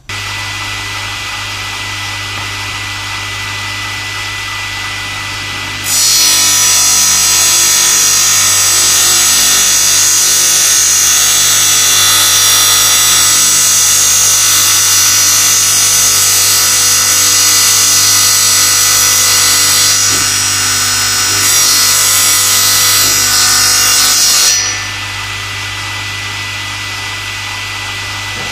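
Table saw starting up and running, then ripping a wooden board lengthwise from about six seconds in to about twenty-four seconds in. The cut is louder and hissier than the motor. Afterwards the blade spins free again with a steady hum.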